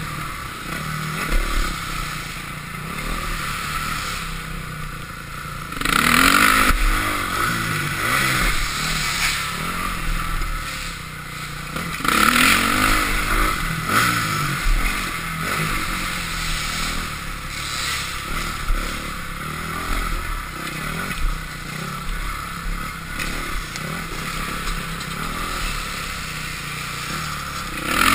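2005 Honda CRF450R's single-cylinder four-stroke engine being ridden hard, revving up and dropping back, with strong throttle surges about six seconds in, about twelve seconds in, and at the end.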